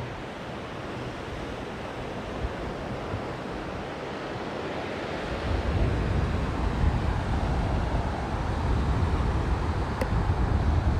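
Sea surf washing on the beach with wind. About five seconds in, wind starts buffeting the microphone as a louder low rumble.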